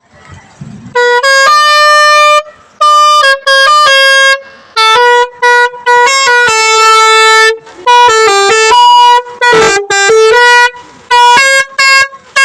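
Telolet multi-tone air horn, the musical horn fitted to Indonesian buses, playing a tune. It starts about a second in, in bursts of quick notes and longer held ones that step up and down in pitch, with short breaks between phrases.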